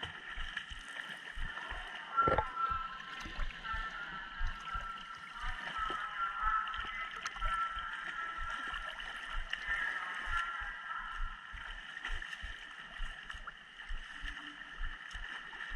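Pool water lapping and sloshing against a camera at the water surface, with many irregular low thumps, under the steady hiss of a reverberant indoor pool hall. A swimmer's front-crawl strokes splash along the lane.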